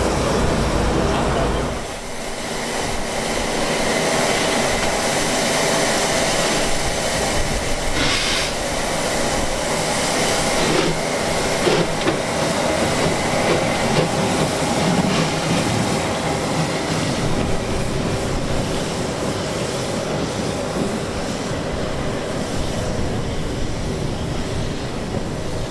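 Narrow-gauge Puffing Billy locomotives: a diesel locomotive runs with a low hum that cuts off about two seconds in. Then the steam tank engines Thomas and 7A, with diesel DH5 coupled behind, work away from the station, their steam exhaust mixed with wheels running over the rails.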